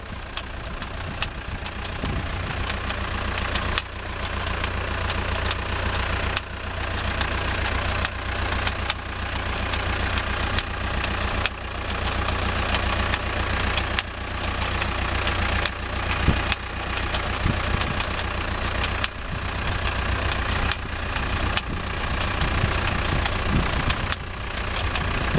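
Farm tractor's diesel engine running steadily while pulling a three-row transplanter, with frequent short clicks and clatter from the machinery.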